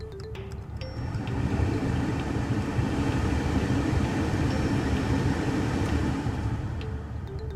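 BMW E90 air-conditioning blower fan running, a steady rush of air that comes up about a second in and eases off near the end. There is no chirping squeal: the blower motor bearing has just been packed with grease as a stopgap fix.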